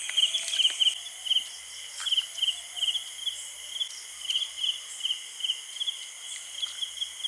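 Night chorus of crickets: short chirps of three or four quick pulses, repeating two or three times a second over a steady high insect hiss, with a few faint clicks.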